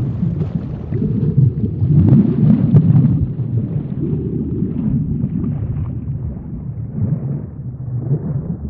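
Underwater ambience sound effect: a low rumbling churn of water that swells and eases, with faint bubbling higher up.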